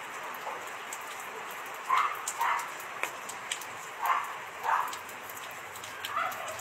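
A dog barking in the distance in pairs of short barks, about every two seconds, over a steady hiss like rain.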